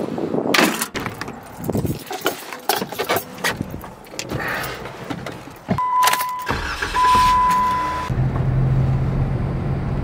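Knocks and rustling as bags are loaded and the car is shut and entered, then a car's warning chime beeps twice while the engine starts about six and a half seconds in and runs with a steady low hum.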